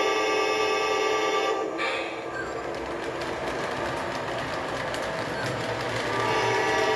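O gauge model diesel locomotive's sound system blowing its horn, a steady chord that stops about two seconds in. Then the motor and wheels run on the track, and the horn sounds again near the end.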